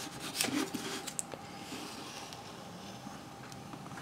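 A thin strip of wood veneer scraped along the seam of a freshly set wood inlay strip, wood rubbing on wood. A few short scrapes and taps come in the first second or so, then the rubbing goes on fainter.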